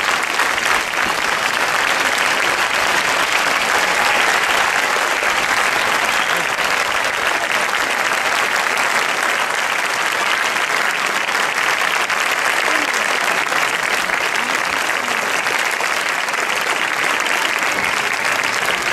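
Audience applauding steadily: a dense, even clapping that holds at one level throughout.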